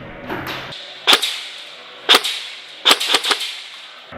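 Airsoft guns firing: single sharp shots spaced about a second apart, then a quick run of three or four shots near the end.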